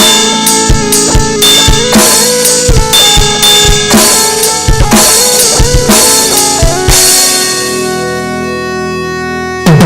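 Instrumental rock with drum kit and guitar: steady kick and snare under sustained guitar notes. About seven seconds in, the drums stop and a held guitar chord rings and fades, then the drums and guitar come back in with a hard hit near the end.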